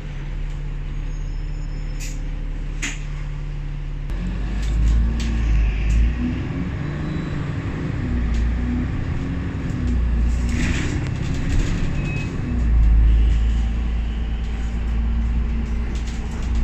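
Diesel engine of a KMB Alexander Dennis Enviro500 MMC double-decker bus heard from inside, idling steadily at first, then pulling away about four seconds in, its note rising and falling as it works through the gears. There is a short hiss of air about eleven seconds in, and the engine settles to a steadier run near the end.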